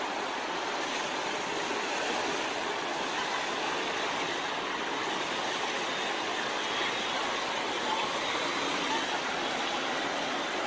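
Steady rush of a fast, muddy river flowing and churning around a pickup truck wading through the current.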